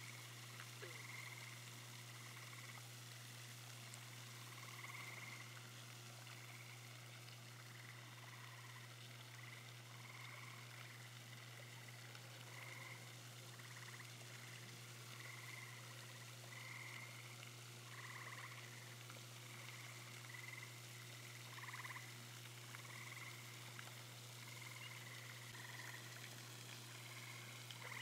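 Faint frogs calling: short croaks that repeat every second or two, over a steady low hum.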